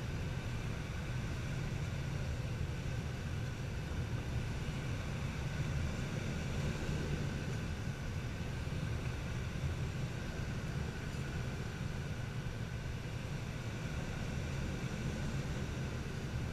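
Steady low rush of airflow around the canopy of a glider in gliding flight, with no engine.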